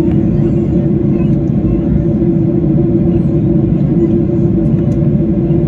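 Cabin noise inside a Boeing 737-800 on the ground: the CFM56-7B engines' steady rumble with a constant droning hum as the jet taxis.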